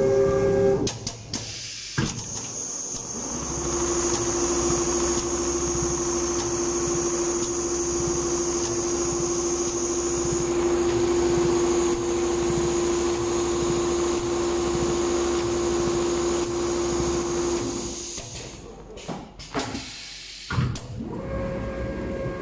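Multihead computerized leather sewing machine running, stitching quilting into leather upholstery panels: fast, even needle strokes under a steady motor whine. The sound breaks off briefly twice, once about a second in and once near the end.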